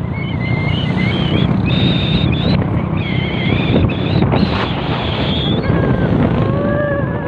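Vehicle engine and wind noise heard while riding along a road, a steady rumble with wavering higher tones over it in the first half and a lower wavering tone near the end.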